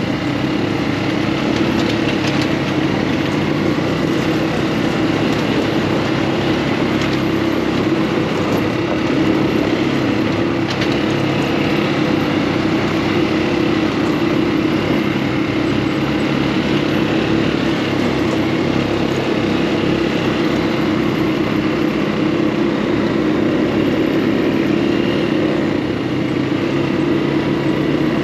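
Off-road buggy engine running steadily under way, a continuous low drone with road and wind noise over it.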